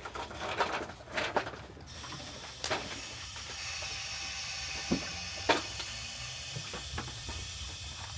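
Floor jack being released: a steady hiss starts about two seconds in as it lets the Jeep down, with a few sharp clicks and knocks from the jack and the vehicle settling.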